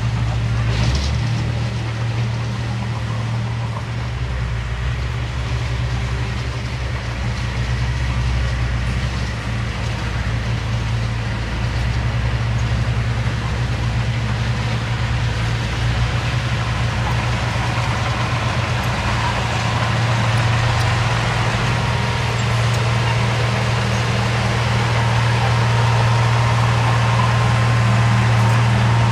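Diesel engine of earthmoving machinery running steadily, a low hum that grows a little louder toward the end.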